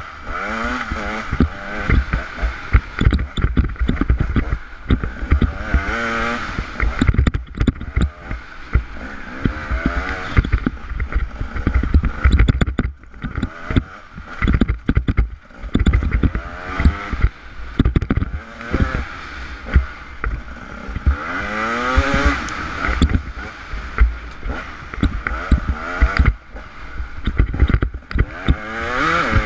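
A camera carried fast along a rocky dirt trail: constant rattling and knocking from the rough ground, with heavy wind buffeting on the microphone. A pitched whine rises in pitch briefly several times.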